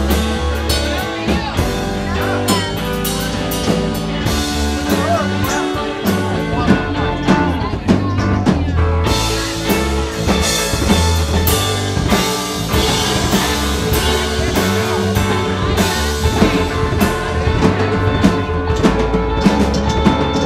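Live rock band playing an instrumental passage with no singing: electric guitar, electric bass, keyboard and a drum kit.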